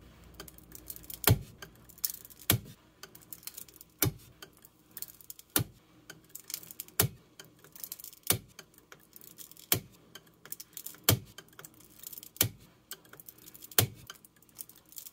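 Wire soap cutter slicing a loaf of cured cold-process soap into quarter-inch bars, about ten strokes at an even pace of one every second and a half. Each stroke ends in a sharp click as the wire hits the plastic cutter base, with fainter ticking of the wire passing through the soap in between.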